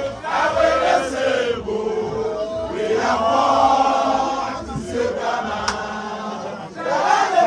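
A crowd of people chanting together in long, sung phrases.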